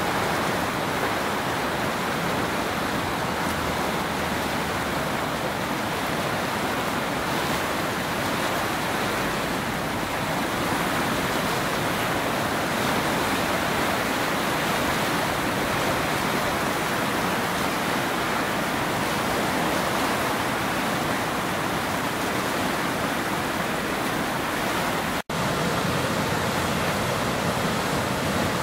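Ergolz river in flood, its high water rushing past in a steady, even noise, broken by a momentary gap near the end.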